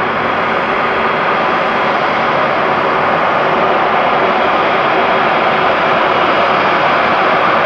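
Airbus A330-300's Rolls-Royce Trent 700 turbofan engines running at taxi power, a steady jet rush that grows slowly louder as the airliner approaches.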